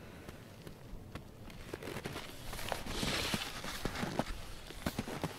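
Skis crunching and scraping over crusted snow in an irregular stream of crisp clicks, the hiss of the gliding growing louder about halfway through.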